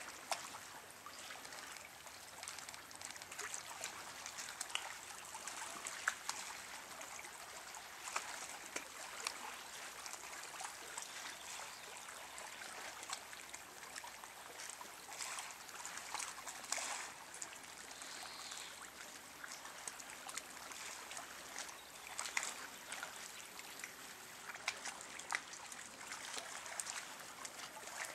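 Small sea waves lapping and trickling over a pebble shore: a soft, steady wash of water with many small clicks scattered through it.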